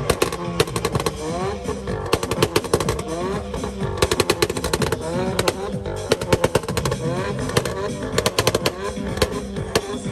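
Rapid volleys of exhaust pops and crackles from tuned cars, coming in several quick clusters a second or two apart, over a din of voices and music.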